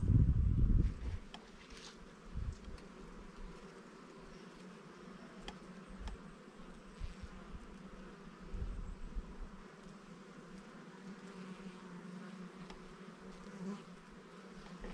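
A swarm of foraging honeybees buzzing steadily on globe thistle flowers, a continuous hum. A few low thumps sound on the microphone, the loudest right at the start.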